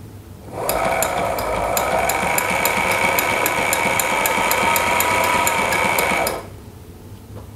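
Sailrite LSZ-1 Ultrafeed walking-foot sewing machine stitching a strip of cording into piping. It starts about half a second in and runs at a steady speed, with a light whine under a quick, even clicking of the needle strokes, then stops about six seconds in.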